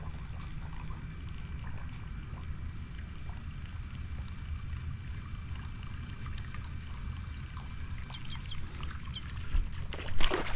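Water splashing as a hooked fish thrashes at the surface near the end, louder than anything before it, over a steady low rumble.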